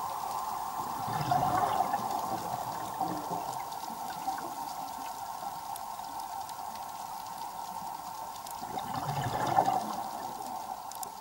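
Underwater ambience: a steady watery hiss that swells twice into louder bubbling, about a second in and again near the end.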